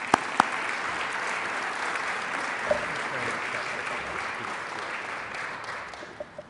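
Audience applauding, starting with a few sharp single claps, then steady clapping that dies away near the end.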